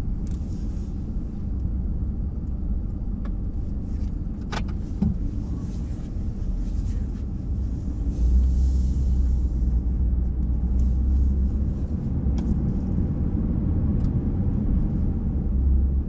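Car being driven, heard from inside the cabin: a steady low rumble of engine and road noise that grows louder about halfway through, with a single sharp click about four seconds in.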